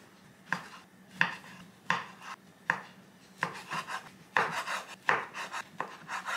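Chef's knife slicing through a block of tempeh and knocking down onto a wooden cutting board: about eight even cuts, roughly one every 0.7 seconds.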